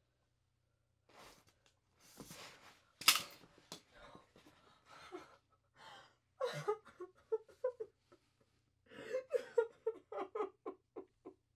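A woman's quiet, heavy breathing and gasps, then a run of short breathy vocal pulses, several a second, over the last few seconds.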